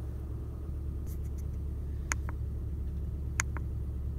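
A small flat-four car engine idles with a steady low hum. Over it come two sharp clicks about a second and a half apart, each with a softer click just after: buttons pressed and released on the keypad of a handheld OBD-II scan tool.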